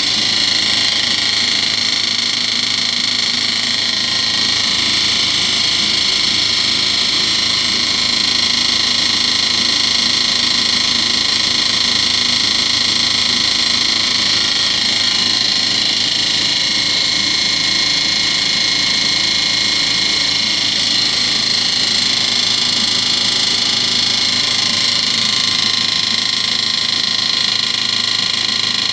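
Miele WMV960 front-loading washing machine running with a loud, steady noise: a high-pitched hiss over a low hum. The owner takes the noise for a fault, tagging it as bad spin and vibration.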